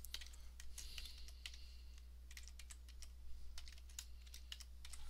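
Typing on a computer keyboard: an irregular run of faint key clicks over a steady low hum.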